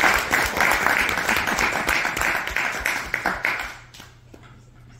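Audience applauding, many hands clapping at once, dying away about three and a half seconds in.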